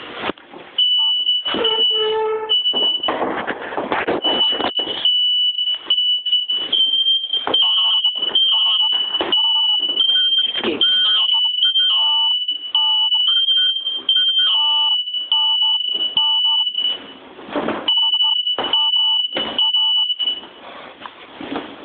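Smoke alarm set off by smoke, sounding a steady high-pitched shriek with brief gaps, over knocks and clatter. It stops near the end.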